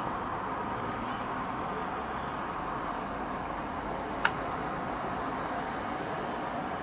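Steady hiss of distant city background noise, with a single sharp click a little past four seconds in.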